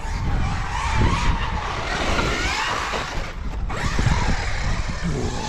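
Losi Super Baja Rey 2.0, a 1/6-scale electric RC truck on 8S power, driving across grass: its sensorless brushless motor whines, rising and falling in pitch with the throttle, over tyre and drivetrain noise.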